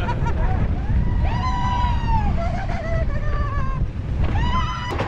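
Wind buffeting the camera microphone with a low rumble on a moving ride, and a high-pitched voice squealing in drawn-out cries about a second in and again near the end.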